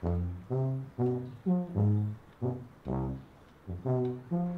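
Low brass instrument playing a line of short, separate notes, about two a second, as music for the film's opening.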